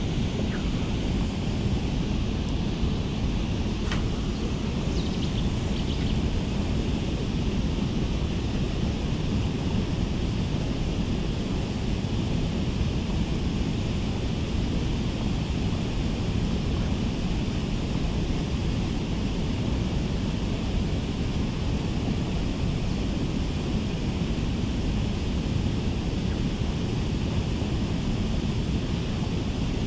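Steady rushing of water with wind buffeting the microphone.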